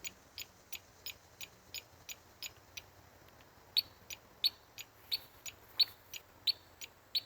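Aftermarket e-bike alarm and turn-signal kit's buzzer chirping with the flashers in a fast steady rhythm, about three short high chirps a second. It pauses briefly about three seconds in, then carries on louder.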